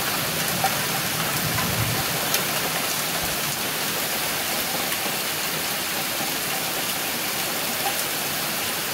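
Heavy thunderstorm rain pouring down in a steady hiss, with a few scattered ticks of drops striking close by.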